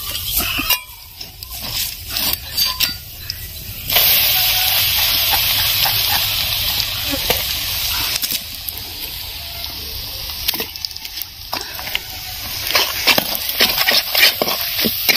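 Small fish frying in hot oil in a pan. A loud sizzle starts suddenly about four seconds in and slowly dies down, with clinks and scrapes against the pan before and after it.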